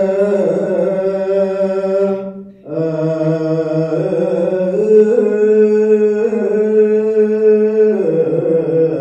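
Ethiopian Orthodox liturgical chant: sung notes held long and moving slowly in pitch, with a short break for breath about two and a half seconds in.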